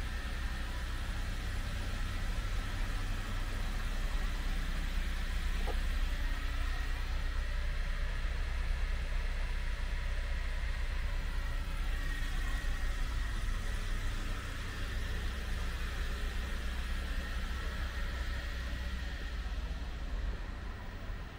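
Road traffic: a motor vehicle's engine running with a steady low rumble.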